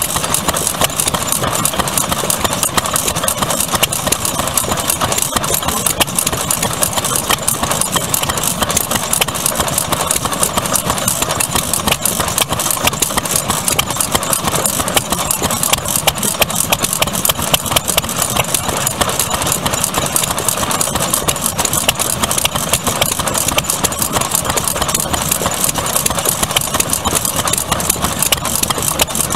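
Vintage Japanese single-cylinder, hopper-cooled kerosene stationary engines with open flywheels running together, giving a steady, dense run of rapid exhaust beats.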